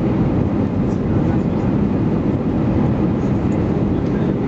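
Steady low rumble inside the passenger cabin of an Airbus A319-131: engine and airflow noise, constant in level with no distinct events.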